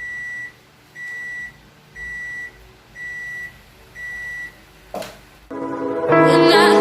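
Sharp ES-FA650P automatic washing machine beeping five times, each beep about half a second long and a second apart, signalling that the wash cycle has finished. A click follows, then loud electronic music starts near the end.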